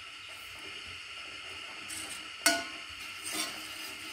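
A steel ladle stirring vermicelli in coconut milk in a stainless steel saucepan, over a steady low hiss. The ladle clinks sharply against the pan once about two and a half seconds in, and more lightly about a second later.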